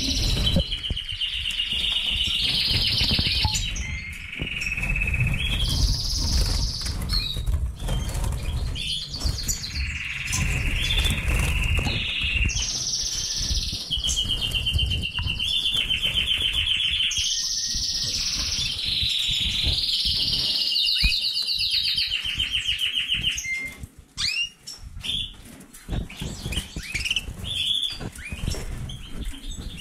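Caged canaries and finches singing: long runs of fast trills, each held at one pitch for a second or two before switching to another, with a low rumble underneath. About three-quarters of the way through the song stops, leaving shorter scattered chirps.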